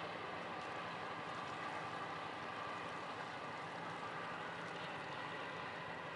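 A tugboat's engine running steadily under way, a continuous drone under the wash of churning water.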